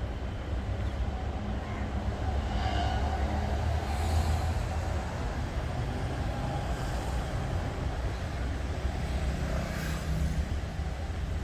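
Steady low rumble of road traffic, swelling about three to four seconds in and again near the end as vehicles pass.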